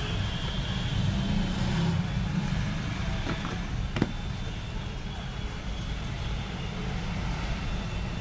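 Steady low background rumble, with a single sharp tap about four seconds in, which is when a smartphone is set down on the table.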